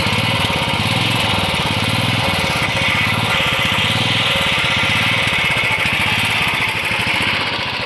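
Royal Enfield Classic 350 BS6's 346 cc fuel-injected single-cylinder engine idling steadily, heard close to the exhaust silencer.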